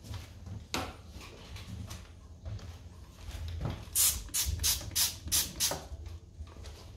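Trigger spray bottle squirting cleaner onto a toilet bowl rim: about seven quick hissing squirts in under two seconds, starting about four seconds in.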